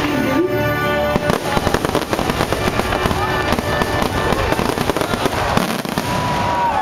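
Fireworks finale: a rapid, dense barrage of bangs and crackles starting about a second in and easing off near the end, over the show's music playing throughout.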